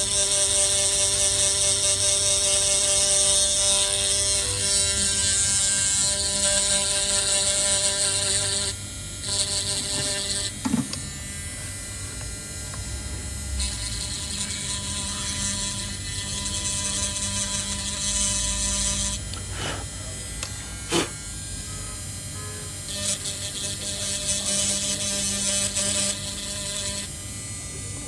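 Steady electric hum and whir of a small motor or fan, with a high hiss that cuts out and comes back several times, and a few short clicks.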